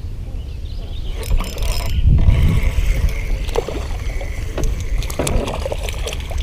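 Wind buffeting the microphone as a steady low rumble, with scattered short clicks and knocks over it.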